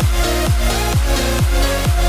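Electronic dance music with a steady four-on-the-floor kick drum, about two beats a second.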